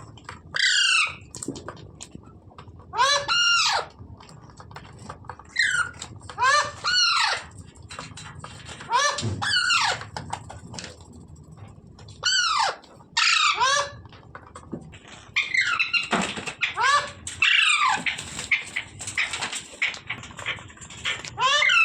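A pet parrot calling over and over: loud, harsh squawks that fall in pitch, about a dozen across the stretch, some in quick pairs.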